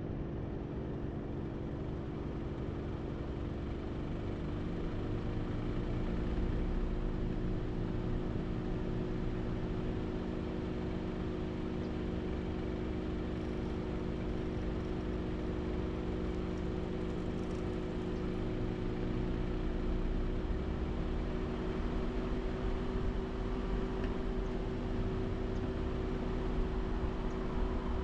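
A vehicle driving steadily: a constant low engine hum over road rumble.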